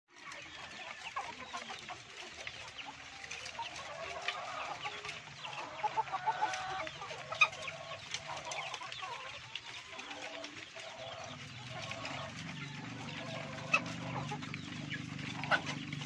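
A flock of caged laying hens clucking, with occasional sharp clicks among the calls. A low steady hum comes in about eleven seconds in.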